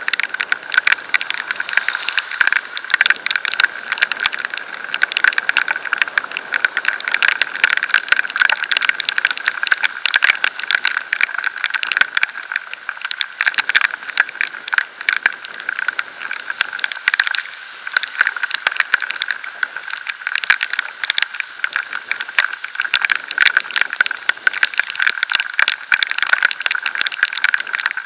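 Raindrops and road spray pattering densely and irregularly on the camera housing and microphone at riding speed, over a steady high hum.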